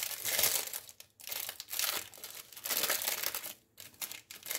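Packaging crinkling as it is handled, in several short bursts of rustling with brief pauses between them.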